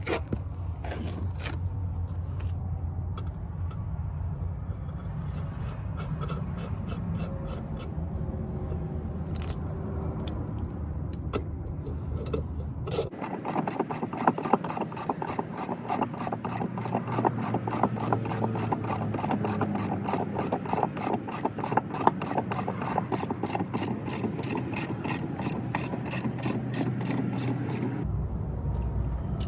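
Hand ratchet wrench clicking steadily, about four clicks a second, while tightening nuts on a truck drive-axle air spring's mounting studs. For roughly the first half there is instead a low steady hum with scattered knocks, which stops abruptly when the ratcheting begins.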